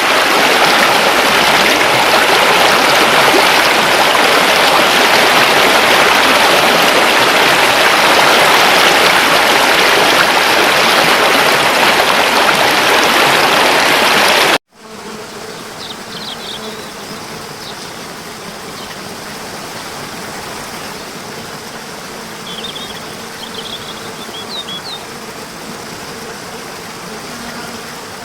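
Loud, steady rushing of flowing water. About halfway through it cuts off abruptly and gives way to a much quieter steady water sound with a few brief high chirps.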